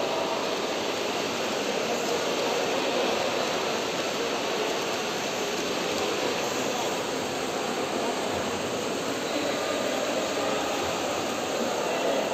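Steady din of a large indoor pool hall: the splashing of a pack of swimming water polo players blended into one continuous noise.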